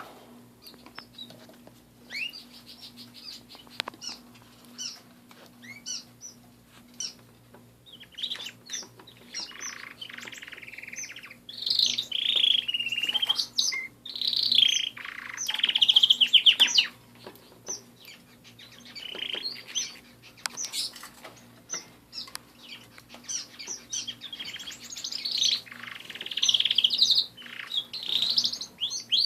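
Domestic canaries singing and chirping: scattered short calls, with louder rapid trilled song phrases about twelve and sixteen seconds in. A faint steady low hum runs underneath.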